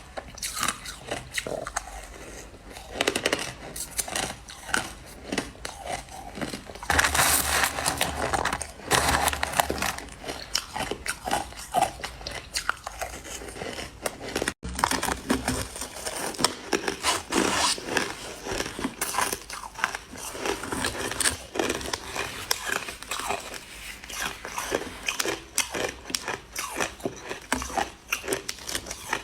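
Crushed ice being bitten and chewed, a steady run of close, crisp crunches and crackles that grows denser and louder for a few seconds about a quarter of the way in. The sound cuts out for an instant about halfway through.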